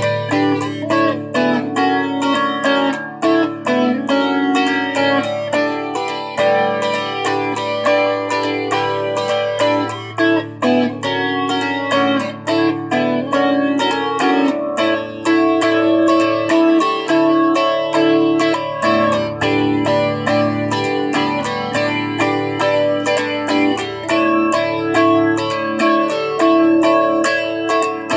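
Guitar playing an instrumental piece: a steady, even rhythm of picked notes over sustained chords.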